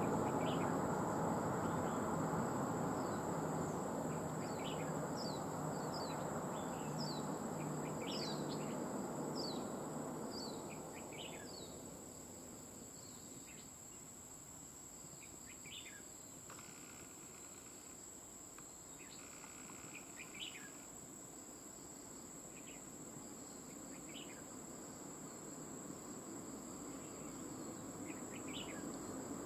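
Red-whiskered bulbuls giving short, falling chirps, many in the first ten seconds and fewer after. Under them runs a steady, high-pitched insect drone, and a broad hiss fades out after about ten seconds.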